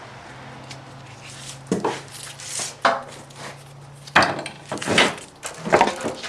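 Handling noises of copper wire and a wire-stripping tool: sharp clacks and short scraping, rustling sounds as the wire is pulled through and the pieces are handled, over a low steady hum that stops about four seconds in.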